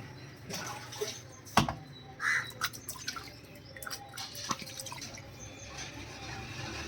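Wet handling while quail are cleaned and cut: dripping and splashing water with scattered sharp knocks. The loudest knock comes about a second and a half in.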